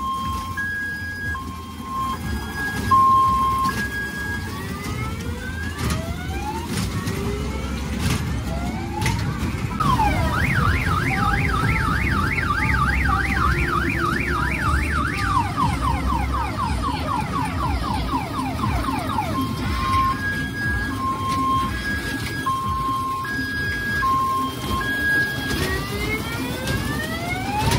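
Electronic siren and alarm sound effects played through an odong-odong kiddie ride's loudspeaker: an alternating two-tone beep at the start and again about twenty seconds in, a fast warbling yelp siren in the middle, and rising whistle glides in between. A low rumble runs underneath.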